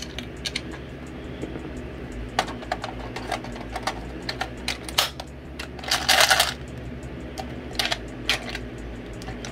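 Plastic clicks and the rattle of loose .22 LR cartridges from a Caldwell rotary 22LR magazine charger being worked by hand while it is jammed on a double-fed round. There are scattered sharp clicks and a longer rattle about six seconds in.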